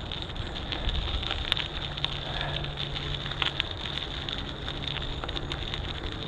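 Wind buffeting the microphone and rolling rumble while riding a bicycle, with scattered small crackles and clicks.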